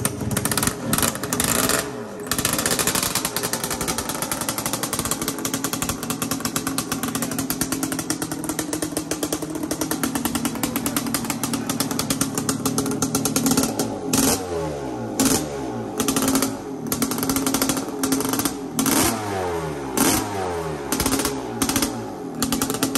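Yamaha Tri-Z 250 two-stroke single-cylinder engine running on choke just after being kick-started cold. It idles unevenly, then from about two-thirds of the way in is revved again and again in short throttle blips.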